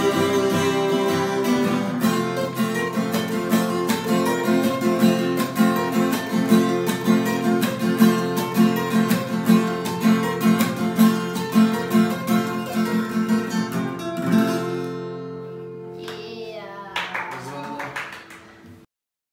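Two acoustic guitars strummed and picked together in a fast, rhythmic duet. About fifteen seconds in the playing stops on held chords that ring out, a last strum or two closes the piece, and the sound cuts off suddenly near the end.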